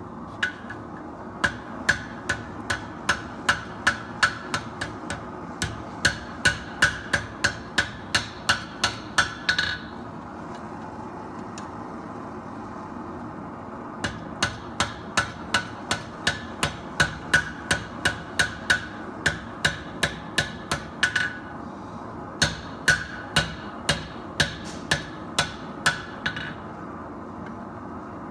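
Blacksmith's hand hammer striking hot steel on an anvil: three runs of steady blows, about two to three a second, each blow with a short metallic ring, with brief pauses between the runs. A steady hiss runs underneath.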